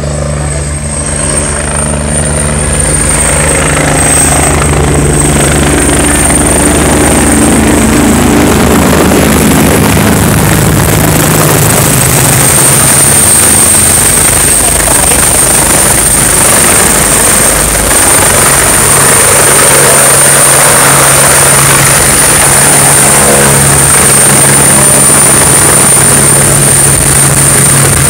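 Helicopter running loud and steady, with a high whine and rushing rotor noise. A lower engine hum fades out about ten seconds in.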